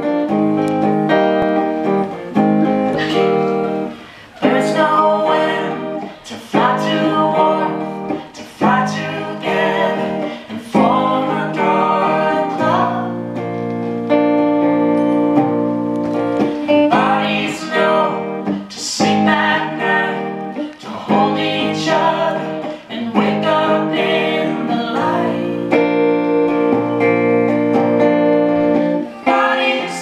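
Live folk song: a guitar strummed in steady chords under a woman's singing voice.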